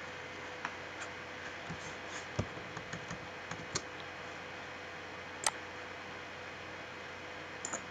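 A handful of scattered, separate clicks from a computer mouse and keyboard, about six in all, over a steady faint background hiss.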